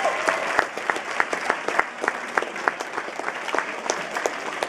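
Audience applauding, with one pair of hands clapping close by at about three claps a second over the general applause.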